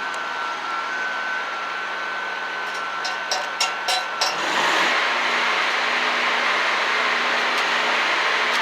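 Stick welding with a 7018 electrode: a few sharp taps as the rod strikes the arc, then a steady crackling burn from about halfway through. A steady welding machine hum runs underneath. The welder finds the setting a little too cold.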